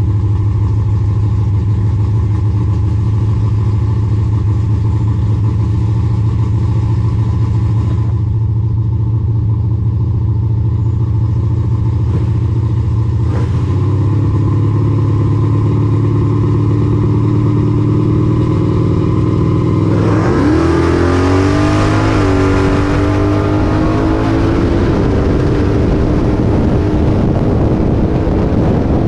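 Drag-racing muscle car engine idling steadily at the start line, its note stepping up a little around the middle. About two-thirds of the way through it launches at full throttle: the engine pitch climbs steeply, drops at a gear shift and climbs again, with wind rushing over the microphone.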